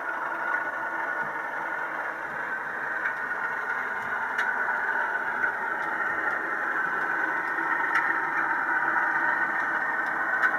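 Model Class 37 diesel locomotive and its train running on the layout: a steady mechanical running noise with a few light clicks.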